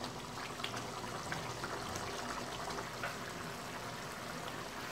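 Thin jackfruit curry gravy bubbling in a kadhai on the stove, a steady hiss dotted with small pops, with a spoon stirring through it.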